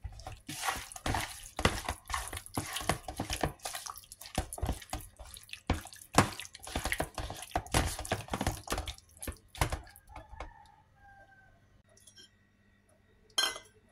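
Hand squishing and turning raw chicken wings in a sticky sauce marinade, a quick irregular run of wet squelches and slaps that stops about ten seconds in. One short knock near the end.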